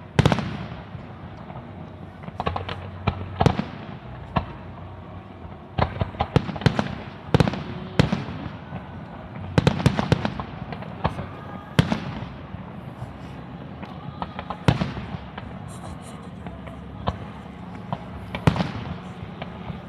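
Professional fireworks display: aerial shells bursting overhead in an irregular series of sharp bangs, several coming in quick clusters, some trailing off in a short echo.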